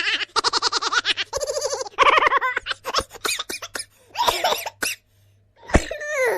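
A person laughing in a silly, exaggerated way: quick runs of high, rapid laughing pulses with squeals and pitch swoops, ending in a falling squeal.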